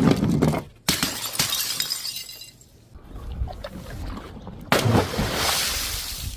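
Glass bottles shattering, with shards tinkling and scattering: a sudden crash about a second in that fades over a couple of seconds, and a second, louder crash near the end.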